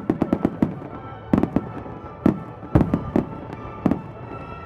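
Aerial fireworks exploding: a rapid crackle of bangs in the first second, then separate loud booms every half second or so.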